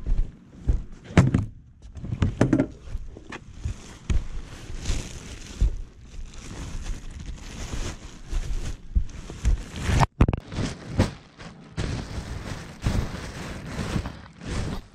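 Irregular knocks, thunks and clatter, some sharp and some dull, with rustling between them and no engine running.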